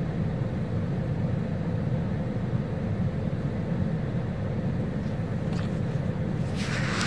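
Steady low rumble of nearby road traffic with a faint engine hum, and a short hissing burst near the end.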